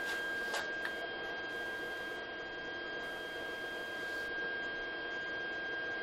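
A steady high-pitched electrical whine with a faint hum beneath it, and a few light metallic clicks in the first second as the steel tubing of the frame is handled.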